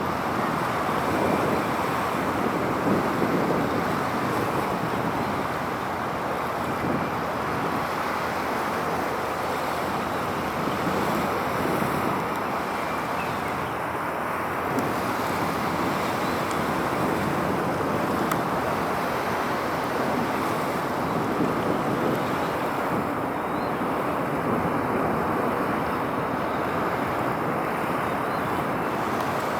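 Steady outdoor rushing noise, such as waves, wind and distant traffic, holding an even level with no distinct events.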